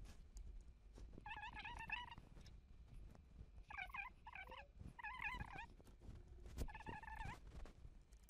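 A bird warbling in the background in four short, high, wavering phrases, with faint clicks and taps of a screwdriver and hands working on a laptop's bottom case.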